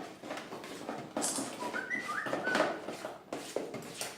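Thick homemade slime of glue and shaving foam being kneaded and mixed by hand: irregular wet squelching, with a few short high chirps about halfway through.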